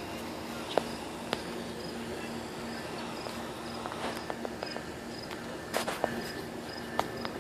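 Crickets chirping in a steady high rhythm, about two chirps a second, over a faint low hum, with a few sharp taps and clicks.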